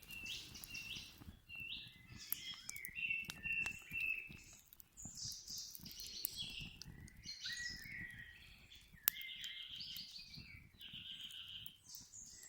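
Several songbirds singing at once, a dense run of overlapping trills and chirps.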